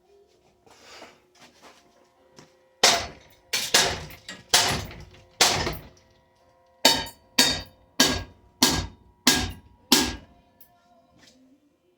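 A Hampton Bay Quick Connect ceiling fan being struck hard again and again: a ragged run of about five knocks, then six evenly spaced ones, a little under two a second.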